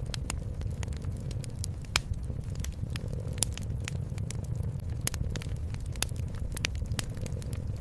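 Wood fire crackling in a fireplace: irregular sharp pops and snaps, several a second, a few louder ones standing out, over a steady low rumble.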